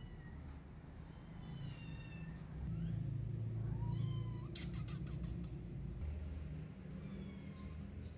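Kitten meowing repeatedly in high-pitched mews, some rising and some short and falling, with a quick run of short sharp sounds about halfway through, over a low steady hum.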